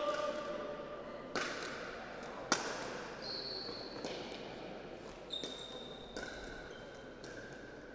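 Pickleball paddles striking the plastic ball in a rally: a sharp pop about a second and a half in, a louder one about a second later, then several fainter hits. Short high squeaks of shoes on the hall floor come between the hits.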